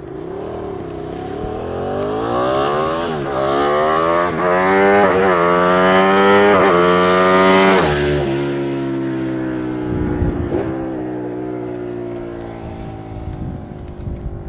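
Ducati 959 Panigale's Superquadro V-twin accelerating hard toward and past, revving up and shifting up through several gears, each shift a quick drop in pitch. It is loudest as it passes about eight seconds in, where the pitch falls away sharply, then the engine note fades as the bike moves off.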